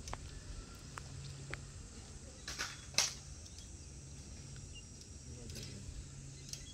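A low steady hum with a few faint scattered clicks. Two sharper clicks come close together about two and a half to three seconds in, and the second is the loudest sound.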